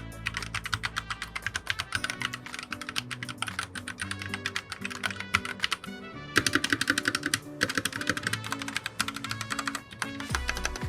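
Fast typing on a PressPlay Rover84 mechanical keyboard: a quick, continuous run of key clicks, with brief pauses about six and seven and a half seconds in, over background music.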